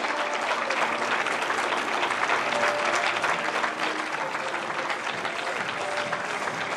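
An audience applauding: dense, steady clapping that eases off slightly in the second half.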